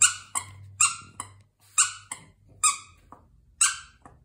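Squeaker in a hand-stitched plush mammoth dog toy squeezed by hand: a run of short, sharp squeaks, about two a second in an uneven rhythm.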